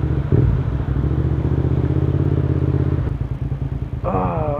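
Motorcycle engine running steadily, its sound dropping off about three seconds in. A voice starts near the end.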